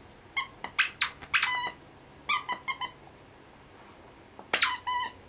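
Plush squeaky squirrel toy squeaking as a dog chews it. Three clusters of quick, sharp squeaks come about half a second in, around two and a half seconds in, and near the end.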